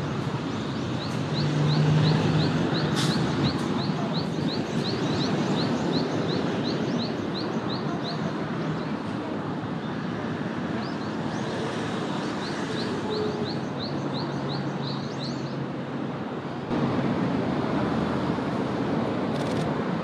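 A bird calling in two runs of short, high, rising notes, about three a second, over a steady background hum. The hum grows louder near the end.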